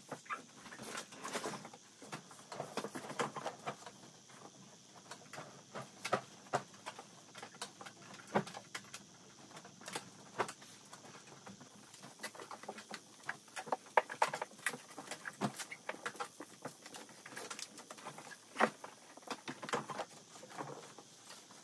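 Bedding being handled: a blanket, pillow and duvet rustling and being shaken and set down, with many soft irregular taps and knocks.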